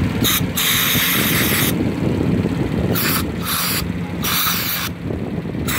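Aerosol brake cleaner sprayed through a straw nozzle in several short hissing bursts, the longest about a second, onto a brake caliper bracket to wash off old grease, over a steady low hum.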